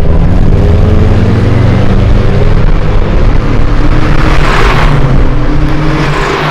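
Car engine running with a loud, steady exhaust note. A rush of noise swells and fades about four to five seconds in.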